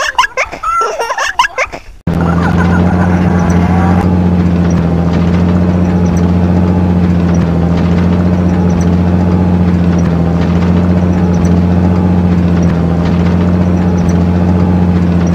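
A truck engine sound, a loud steady low hum that does not change in pitch. It cuts in suddenly about two seconds in, after a moment of children's voices and laughter.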